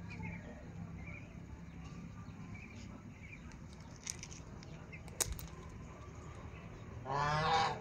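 Quiet farmyard ambience with a few faint bird peeps and a couple of sharp clicks, then one loud, drawn-out fowl call, wavering in pitch, near the end.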